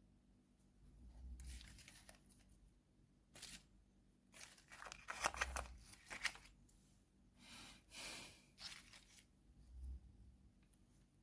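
Candy wrapper being torn open and crinkled in a series of short, irregular crackling rustles with sharp little clicks, the busiest stretch near the middle.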